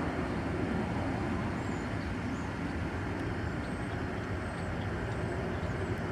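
Steady low rumble of a departing Airbus A300's jet engines heard from a distance, with no change in level.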